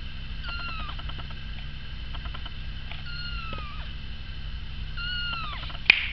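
Four-week-old Persian kitten meowing three times, each a high thin call that drops in pitch at the end. Near the end comes a single sharp snap, the loudest sound.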